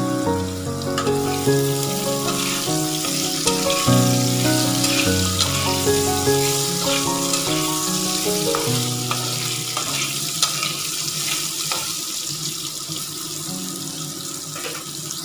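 Cubed potatoes frying in hot oil in a steel kadai, a steady sizzle, with the occasional scrape of a metal spatula stirring them. Background music with a stepping melody plays over it, fading over the second half.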